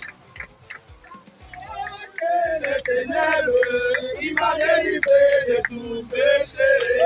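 A group of young men singing a chant together with hand claps, the singing coming in strongly about two and a half seconds in after a quieter stretch of scattered claps.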